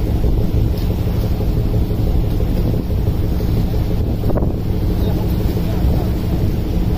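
Wind buffeting the microphone over the steady low hum of a fishing vessel's engine and the rush of sea water along the hull.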